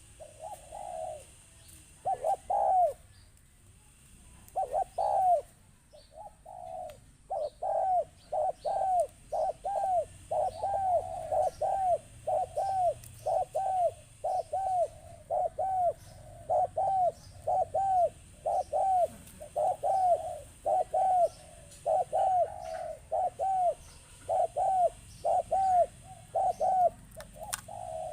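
Spotted dove cooing: short, arching coos repeated in quick runs, a few at first with short pauses, then nearly continuous at about two a second from roughly a quarter of the way in.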